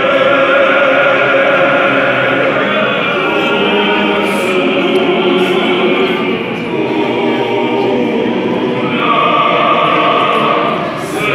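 Male choir singing together in harmony, several voices holding long notes.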